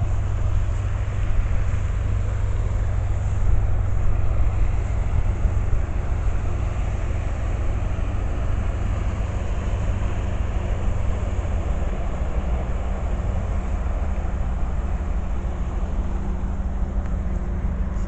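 Engine running steadily, a low drone that drops slightly in pitch about twelve seconds in.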